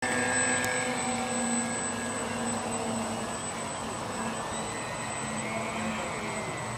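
Electric outrunner motor of a radio-controlled model speedboat, run on an 8.4 V battery pack, whining steadily as the boat runs on the water. The pitch glides up and back down about five to six seconds in.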